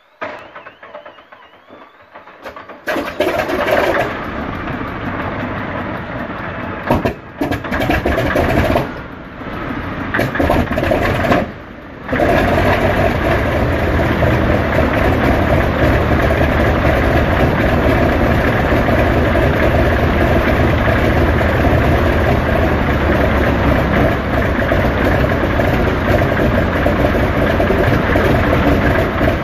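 Antonov An-2's nine-cylinder radial engine cold-starting. The starter winds up with a faint rising whine, and the engine catches about three seconds in. It runs unevenly with several brief drop-outs, then settles into steady running from about twelve seconds in.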